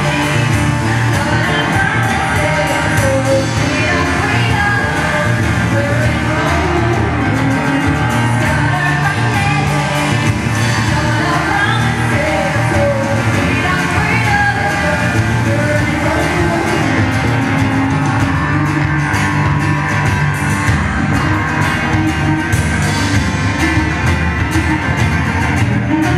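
Live rock band playing a song: a woman singing lead over electric guitar, bass guitar, cello and drums.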